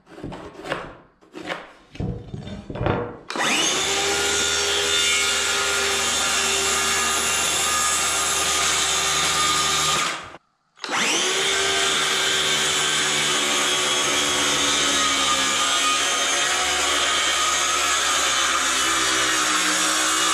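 A few short scratching strokes of a pencil marking the board. Then a circular saw spins up and cuts through a pine shiplap board, running steadily. It stops briefly about ten seconds in, then starts again and keeps cutting.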